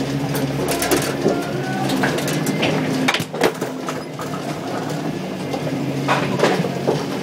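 Duckpin bowling pinsetter machinery running with a steady hum and a stream of mechanical clicks and clatter, with a sharper knock about three seconds in.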